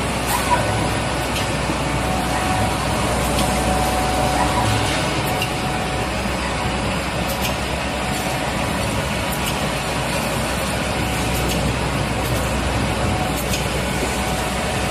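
SGL-103 automatic screen printing machine for glass alcohol bottles running: a steady mechanical hum with a thin steady whine and faint clicks every few seconds.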